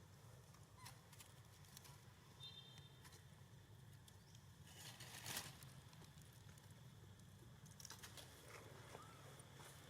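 Near silence: faint scattered clicks and one brief rustle about five seconds in, over a low steady hum.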